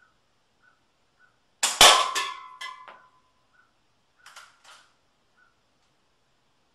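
A shot from a Daisy Powerline 340 spring-piston BB gun and the BB hitting an aluminium soda can, which is knocked off the shelf and clatters down with a brief metallic ringing, about a second and a half in. Two lighter clicks follow a couple of seconds later.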